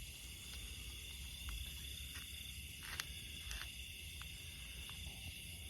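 Steady, high-pitched insect chorus, a shrill layered buzz like crickets, with a few light clicks over it.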